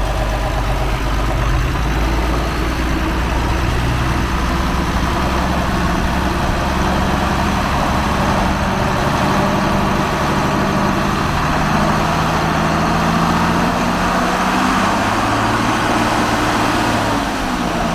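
John Deere 4440's freshly rebuilt six-cylinder turbo diesel engine running steadily on a drive, being worked to burn the carbon out of it. Its pitch creeps up slowly through the middle and drops back near the end.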